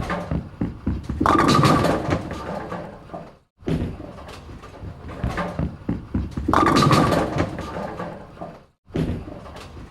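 Bowling ball rolling along a lane: a low rumble with clacks, rising to a louder clattering stretch about a second in. The same take plays twice more after short breaks.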